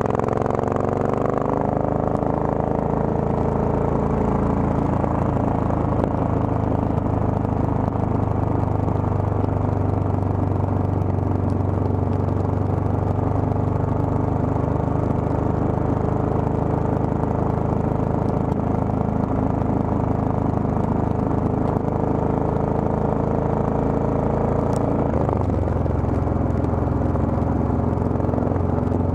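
Triumph Thunderbird's parallel-twin engine running under way. Its note rises as the bike pulls away at the start, holds steady while cruising, and changes pitch about 25 seconds in.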